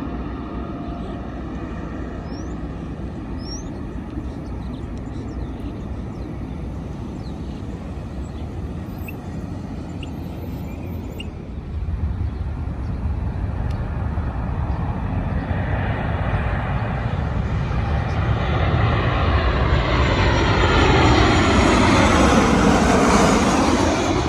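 Jet airliner on landing approach passing low overhead: engine noise grows from about halfway and is loudest near the end, with a sweeping whoosh as it goes over.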